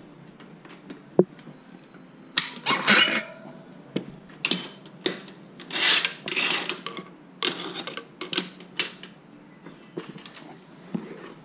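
Knobby dirt-bike tire being worked off a spoked wheel rim with a tire iron: irregular rubber-on-metal scrapes and rubbing, with sharp metallic knocks and clinks of the tools.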